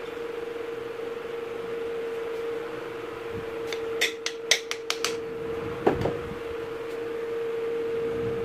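Steel hatchet head and wooden handle knocking together as they are handled: a quick run of about six sharp clicks and knocks, then a single knock with a short ring, over a steady hum.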